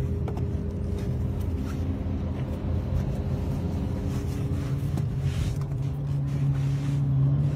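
Steady low hum and rumble of the armored Brabus G-Wagon idling, heard inside its cabin. A faint click comes about five seconds in as the roof escape hatch's handle is worked.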